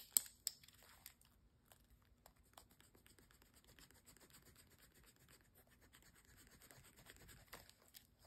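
Faint scratching of a pen moving on magazine paper, with a couple of light clicks at the start.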